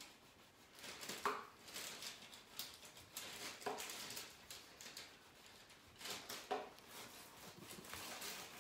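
Faint rustling and scraping as a small handheld craft iron is rubbed back and forth over decoupage tissue paper on a wooden stool seat, ironing the tissue down, with a few short crinkles.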